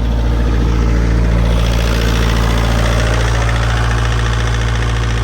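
Bobcat T140 compact track loader's diesel engine running steadily at idle, heard from the operator's seat after a successful start.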